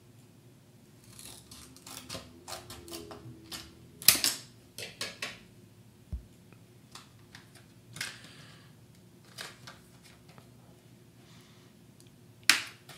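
Scissors snipping through stiff cardboard-backed plastic packaging: a run of crisp snips, a loud crunch about four seconds in and a few more snips after it. Then scattered crackles of the package being handled and pried apart, with another loud crack near the end.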